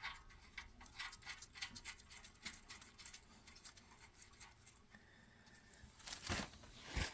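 Quiet hand-handling noise: scattered small clicks, rustles and scrapes of parts and materials being handled, with one louder knock about six seconds in.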